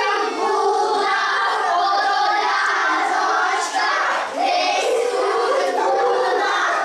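A group of children singing together, many young voices overlapping at once.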